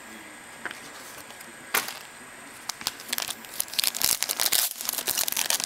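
Foil wrapper of a 2011 Certified football card pack crinkling and crackling as it is picked up and torn open: a light click and a single crackle early on, then dense crinkling from about three seconds in, growing louder.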